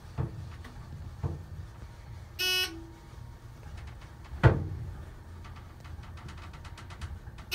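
ThyssenKrupp hydraulic elevator car travelling up, with a steady low rumble. A short electronic beep sounds about two and a half seconds in, as the car reaches the third floor, and repeats at the very end. A loud thump about four and a half seconds in is the loudest sound.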